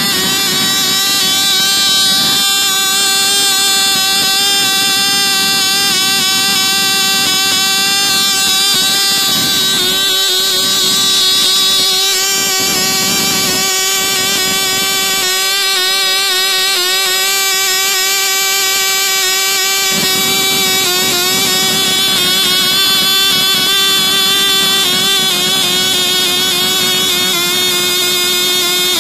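Cox Tee Dee .010 two-stroke glow engine running on its test stand: a steady, high-pitched buzz at very high revs, set a little rich. Its pitch dips slightly near the end.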